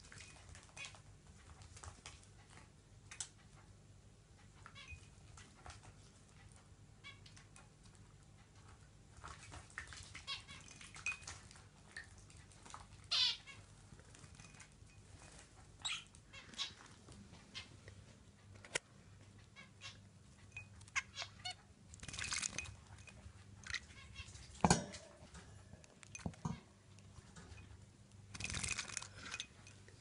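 Budgerigars chirping in short scattered calls while they bathe, with bursts of splashing and wing-fluttering in a shallow water dish, one about two-thirds through and another near the end. A single sharp knock sounds just after the first burst.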